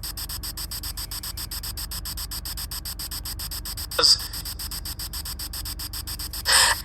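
Spirit box radio sweep: steady static chopped rapidly, about nine times a second, as it scans through stations. Two short snatches of louder radio sound break through, one about four seconds in and one near the end.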